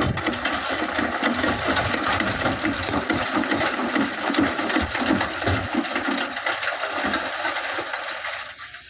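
Excavator loading sand into a dump truck: a dense, continuous rattle and clatter of sand and stones pouring over the running machinery, starting suddenly and stopping shortly before the end.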